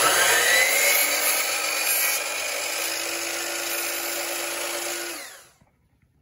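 DeWalt electric miter saw switched on and cutting a thin wooden strip: the motor's whine rises as the blade spins up, holds steady, then dies away about five seconds in.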